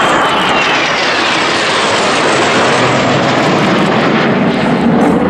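A formation of Kawasaki T-4 jet trainers flying overhead: a steady roar from their twin turbofan engines. A whine in it falls in pitch over the first two or three seconds as the jets go by.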